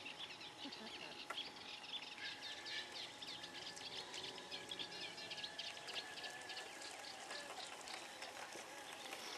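Birds chirping in a rapid, dense run of short high notes, faint and continuous. A steady high tone sounds under them from about two seconds in until about seven seconds.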